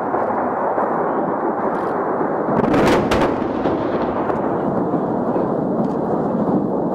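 Continuous rumble of heavy live-fire weapons: artillery and explosions. Two sharp reports come close together about three seconds in.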